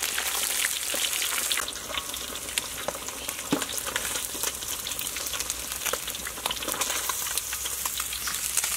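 Snakehead fish pieces deep-frying in hot oil: a steady sizzle full of small popping crackles, a little softer after about two seconds and building again near the end.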